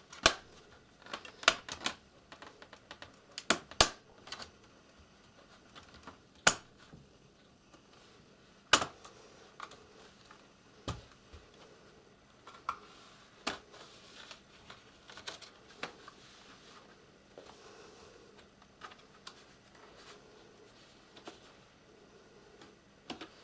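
Plastic snap-fit clips of a Lenovo Ideapad Flex laptop's bottom case clicking loose as the case is pried off its frame: sharp, irregular clicks, a quick cluster in the first few seconds, then single clicks a few seconds apart.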